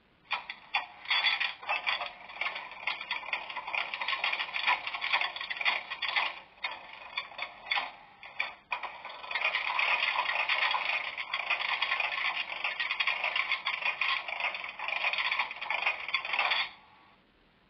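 Piko H0 model of a DB class 141 electric locomotive with a sound decoder, giving an irregular scratchy, clattering noise. It starts suddenly, drops out briefly twice in the middle, and cuts off suddenly near the end.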